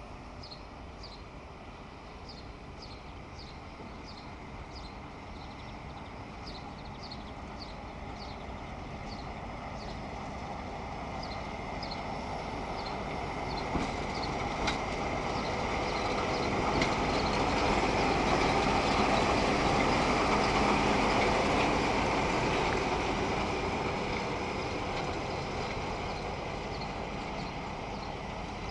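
RENFE class 308 "Yeyé" diesel shunting locomotive running as it approaches and passes close by. Its engine grows steadily louder to a peak about two-thirds of the way through, then fades. Two sharp clicks come about halfway.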